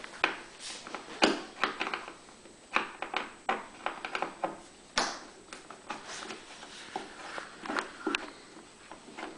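Irregular clicks and taps of a Phillips screwdriver and screws being worked out of the end cover of a Champion 3100-watt generator.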